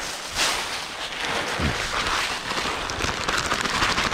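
Dried corn kernels shaken out of a plastic bag, pattering onto dry fallen leaves like rain.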